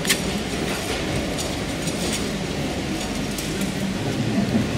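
Steady low background rumble with a few light clicks and scrapes of a small plastic fork cutting into a waffle in a cardboard tray.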